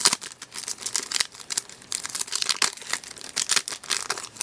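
Foil trading-card pack wrapper crinkling and tearing as it is ripped open by hand, in quick irregular crackles.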